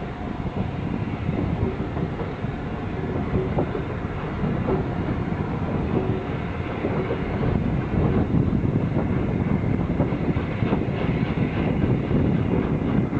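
Steam-hauled train behind Peppercorn A1 Pacific 60163 Tornado running along the line, its wheels clicking over the rail joints in an uneven stream, a little louder from about eight seconds in.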